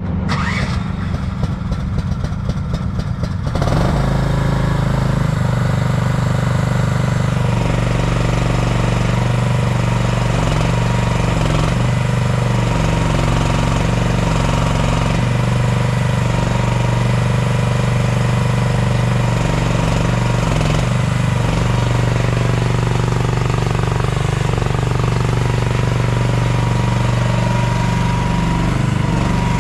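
MIVA VA13E mini excavator engine being cranked by its starter for about three and a half seconds, then catching and running steadily at idle, with a faint steady whine above the engine note.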